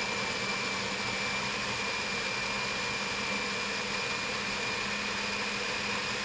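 Countertop blender motor running steadily with a constant high whine, pureeing a chunky marinade of tomatoes, onion, jalapeños, whole lemon and lime pieces and cilantro.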